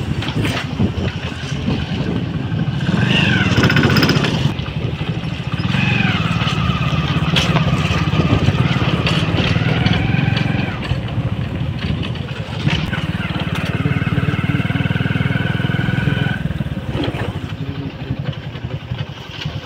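Motorcycle engine running while riding, a steady low drone with a fast pulse that eases off near the end. Higher gliding tones come and go over it.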